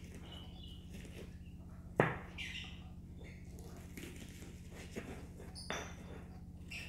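Stone pestle knocking and grinding against a stone mortar (cobek and ulekan) as garlic cloves and shallots are crushed: one sharp stone-on-stone knock about two seconds in and softer knocks later, over a steady low hum, with short high chirps between the strokes.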